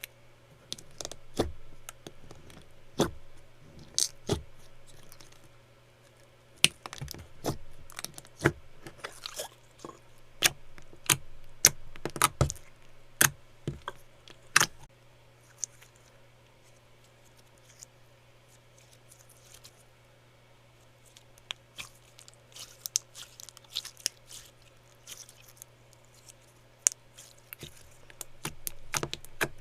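Slime being squeezed, poked and stretched by hand, making irregular sharp pops, clicks and crackles, with a quieter stretch past the middle.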